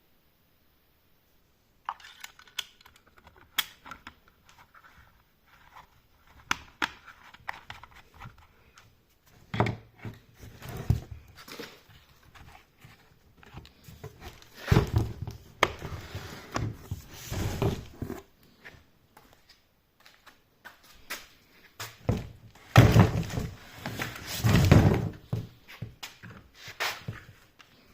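Handling noise from unpacking a telescopic chainsaw: scattered clicks and knocks of the parts and packaging, with louder thumps and rubbing in two spells, one around the middle and one near the end.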